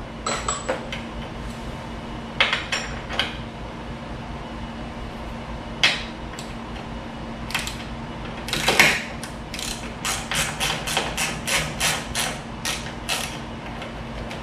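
Hand ratchet wrench clicking as the fuel tank's two mounting bolts are run down with a 12 mm socket. The clicks come in short runs, quickening to about four a second near the end, with a few louder knocks of the tool against the bolts and bike.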